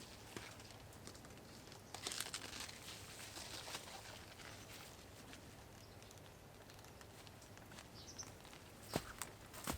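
Faint rustling and crinkling, with a few sharp knocks near the end.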